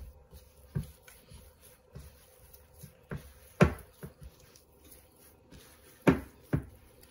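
Hands kneading soft cookie dough in a glass mixing bowl: a few dull thumps as the dough is pressed and pushed against the bowl, the loudest about three and a half seconds in and two more close together near the end.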